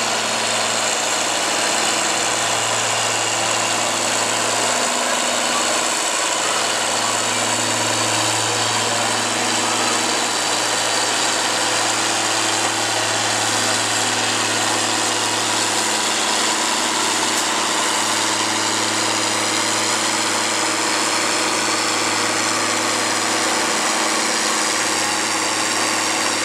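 John Deere 4230's turbocharged six-cylinder diesel engine running hard under full load, pulling a weight-transfer sled. The engine note holds loud and steady, with only small shifts in pitch.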